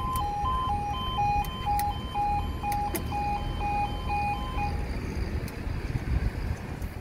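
Railway level crossing's yodel alarm sounding, two tones alternating about twice a second, then stopping about five seconds in.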